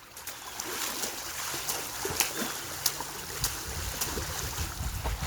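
Water splashing and sloshing in a swimming pool as a swimmer kicks and a dog paddles, with many short sharp splashes. A low rumble joins about three and a half seconds in.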